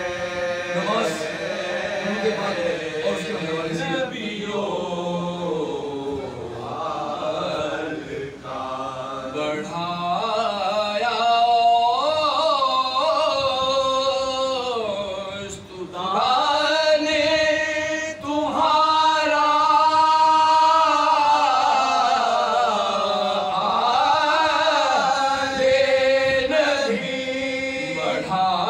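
Unaccompanied male voices reciting a salaam in soz-khwani style, the Urdu mourning chant of a Shia majlis. A lead reciter sings into the microphone while several men sing along, in long held notes that bend in pitch.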